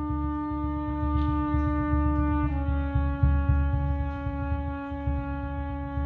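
A single sustained instrumental note, horn-like, held steady and then stepping down slightly in pitch about halfway through, over a low, uneven rumble.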